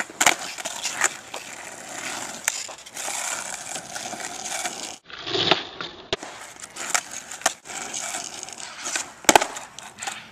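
Skateboard wheels rolling on rough asphalt, with several sharp clacks as the board's tail pops and the board lands during ollie attempts; the loudest clack comes near the end.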